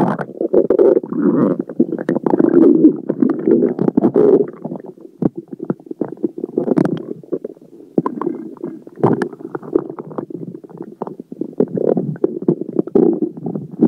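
Stomach and intestines gurgling and rumbling: irregular, bubbly churning with small pops as gas from swallowed air moves through the gut with the food. It is strongest in the first few seconds, eases, and then swells again toward the end.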